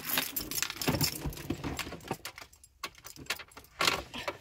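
Car keys jangling and clinking as a hand fumbles them into the ignition. The clinks come thick for the first two seconds, thin out, then come again about three seconds in.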